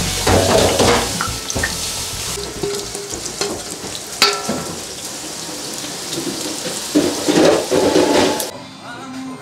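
Chive-and-chili pancake batter sizzling in hot oil in a cast-iron skillet, a steady hiss that cuts off shortly before the end.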